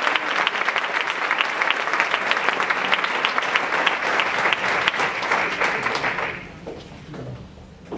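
Audience applauding, the clapping fading out about six seconds in.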